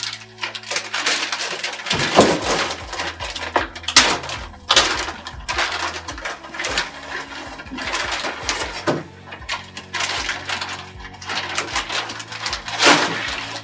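Clear plastic packaging bag crinkling and rustling in irregular bursts as a boxed item is handled and lifted out of its foam inserts, with background music underneath.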